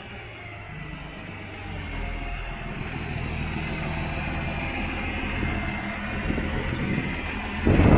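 Garbage truck engine running steadily and growing gradually louder; the truck has an exhaust leak. A much louder noise starts just before the end.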